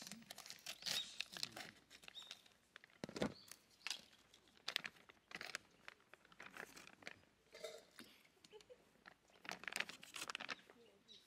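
Plastic bag crinkling and rustling in irregular bursts as it is cut open with scissors and handled, with light clicks as wooden skewers are pulled out of it.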